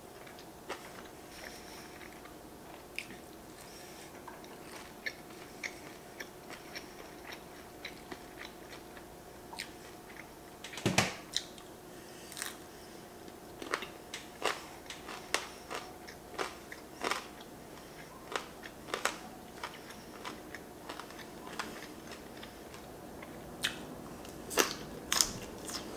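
Mouth sounds of eating: soft chewing of raw yellowtail sashimi in chili sauce, broken by sharp crunches. The loudest crunch comes about eleven seconds in, as a crispy air-fried rice ball is bitten, and more come near the end as fresh green onion is chewed.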